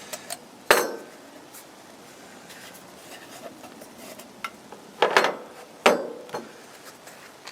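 Metal camp-stove parts knocking together as a Trangia spirit burner is handled in a folding Sterno stove: three sharp clinks, one just under a second in and two around five to six seconds in, with faint rustling and small taps between.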